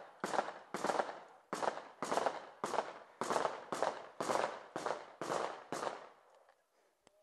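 Gunshots in a slow, steady series, about two a second and around a dozen in all, each trailing off in echo. The firing stops about six seconds in.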